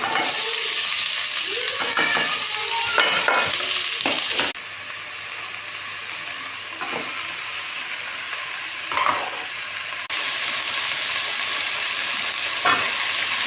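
Food sizzling in a hot frying pan, with repeated short scraping strokes as it is stirred. The sizzle steps down in level about four seconds in and comes back up about ten seconds in.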